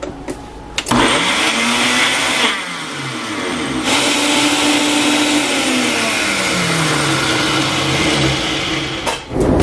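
Electric blender running, blending avocado and cocoa powder. It starts about a second in, its pitch dips and rises partway through, and it stops near the end.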